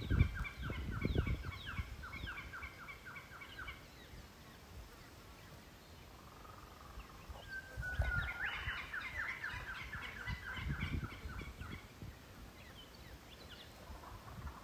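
A bird calling in two bouts of rapid, chattering notes, about five a second: the first bout stops about four seconds in, and the second starts around eight seconds and lasts about four seconds. Low rumbles of wind on the microphone come and go underneath, loudest near the start.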